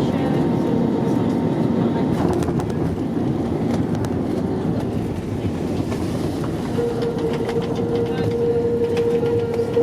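Cabin noise of an Airbus A321neo rolling on the runway after landing: a steady heavy rumble from the wheels and airframe with light rattling, and a steady hum that comes in about seven seconds in.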